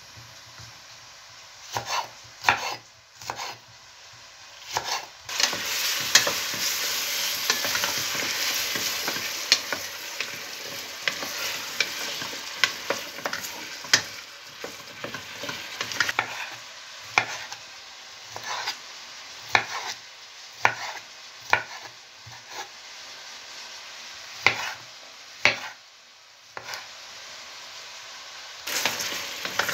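Chopped onion, carrot and peppers sizzling in hot oil in a steel pot while being sautéed, loudest for about ten seconds from about five seconds in and again near the end, with a wooden spatula stirring them. Sharp single taps of a knife cutting peppers and tomato on a wooden board come at intervals throughout.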